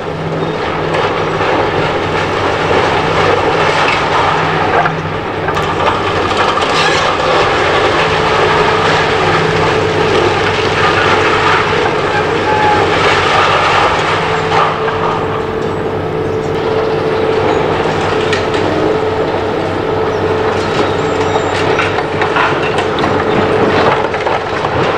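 Demolition excavator with a hydraulic crusher jaw tearing into a concrete and brick building. Its engine and hydraulics drone steadily under continual crunching, clattering and crashing of falling concrete, brick and metal debris.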